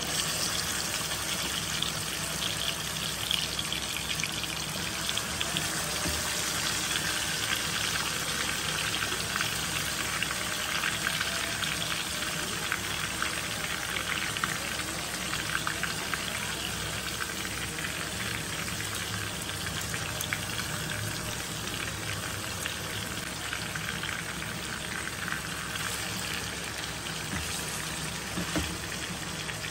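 Masala-marinated chicken legs frying in hot oil in a nonstick kadai: a steady sizzle with many small pops and crackles.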